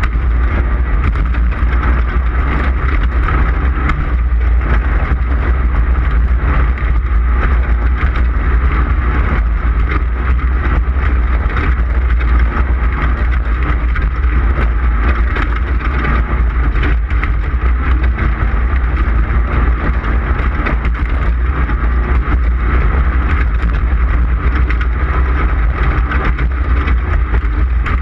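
Off-road race car running at speed over desert terrain, a steady loud engine-and-drivetrain drone with heavy low rumble and rattle from the rough ground, heard from on board.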